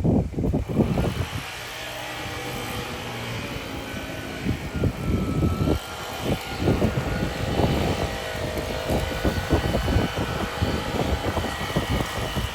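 Honda 21-inch walk-behind lawn mower running steadily, its engine and blade giving a continuous hum with a faint whine.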